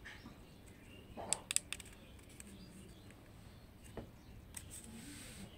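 Quiet handling noise from a smartphone gimbal and phone being worked by hand: a quick cluster of light clicks about a second and a half in, a single click later, and a soft rustle near the end.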